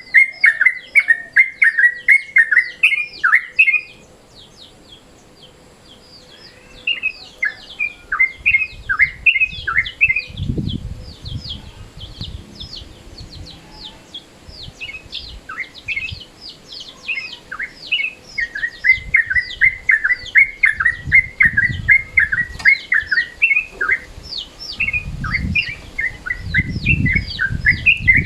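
Yellow-vented bulbul (trucukan) calling: rapid runs of short, bubbly chirps that pause briefly a few seconds in and then resume. A low rumbling noise comes in underneath now and then.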